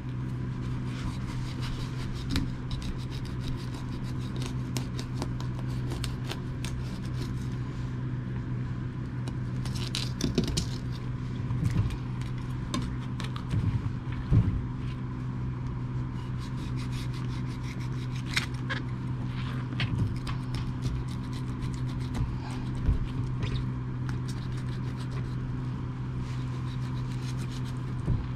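Knife scraping and slicing along a rockfish's backbone as it is filleted on a plastic cutting board: irregular short scrapes and clicks, the loudest cluster about halfway through, over a steady low hum.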